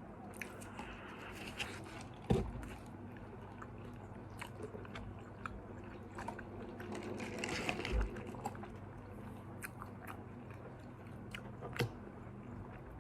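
Someone biting and chewing McDonald's fast food close to the microphone, with small wet mouth clicks throughout and a couple of soft low thumps, about two seconds in and near the middle.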